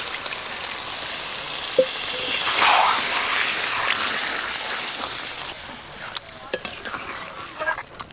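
Water poured into a hot metal wok of chicken and potato curry, hissing and sizzling in the hot oil and spices. A flat metal spatula stirs through it, clicking against the pan now and then. The sizzle is loudest about three seconds in and dies down toward the end.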